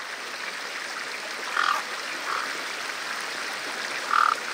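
Steady rush of river water pouring over a low weir, with three short animal calls over it, about one and a half, two and a quarter, and four seconds in.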